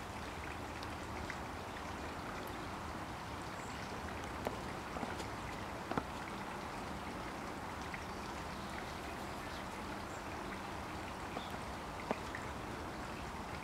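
Steady outdoor hiss with a few scattered sharp ticks of water dripping from wet foliage after rain.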